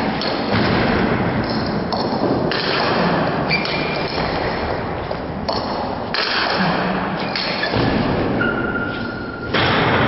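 Table tennis ball clicking off bats and the table during a rally, over a steady din from other tables in play in a large hall, with a few short ringing pings.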